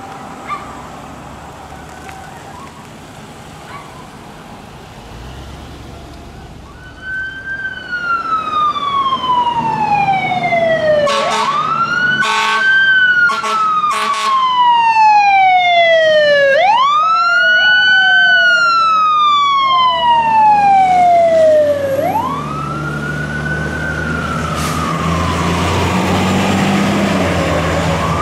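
Emergency vehicle siren sounding in a wail, each cycle rising quickly and falling slowly, coming in about seven seconds in and staying loud. A few short air horn blasts cut across it a few seconds later, over a low engine rumble.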